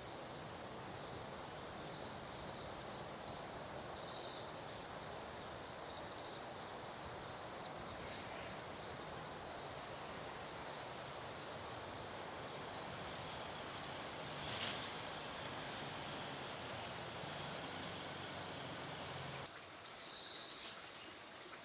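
Steady outdoor background hiss with short, high chirps of small birds scattered through it. The background drops away suddenly near the end, and one more chirp follows.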